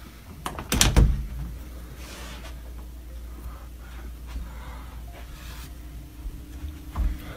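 A hinged interior panel door being opened, with a loud clatter of knocks from the latch and door about a second in and another knock near the end, over a low steady hum.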